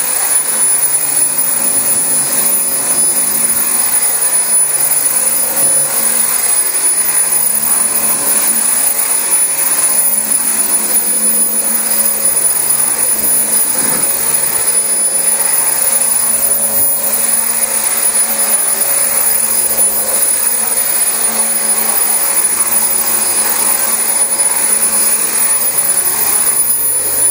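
Dyson DC25 upright vacuum cleaner running steadily on newly fitted carpet, its motor giving a constant high-pitched whine over the airflow noise.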